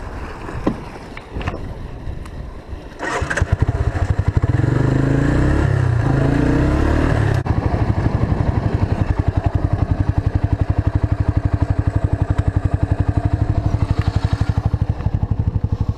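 A trike's engine running with a rapid, even firing pulse; it gets suddenly louder about three seconds in and settles into a steady run about seven seconds in.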